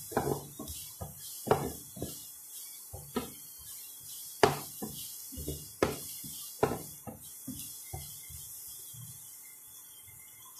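A spatula scraping and knocking against a stainless steel pot as vegetables are stirred and tossed in a sauté, with irregular knocks about one or two a second that thin out near the end.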